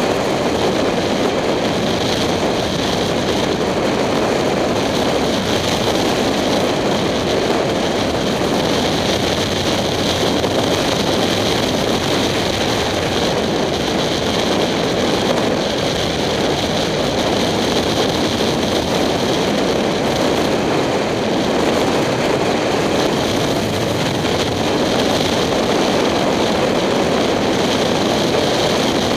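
Steady wind rush over a helmet-mounted camera at road speed, with the 2007 Kawasaki Ninja 250's parallel-twin engine running underneath at a steady cruise.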